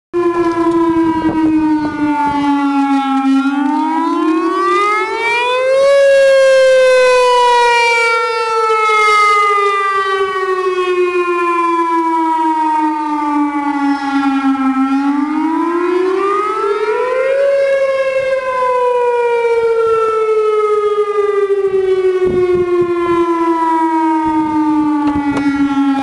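Electronic six-speaker tornado siren sounding a wail during a test. Its loud, buzzy tone rises over about two and a half seconds, then falls slowly over about nine seconds, and this happens twice.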